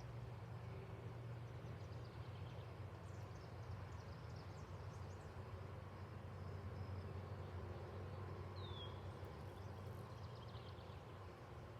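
Faint outdoor ambience: a low steady drone from the diesel locomotive of an approaching freight train still some way off, with scattered small bird chirps, one short falling chirp about nine seconds in.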